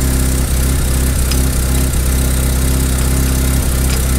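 Mazda RX-7 FD's 13B rotary engine idling steadily.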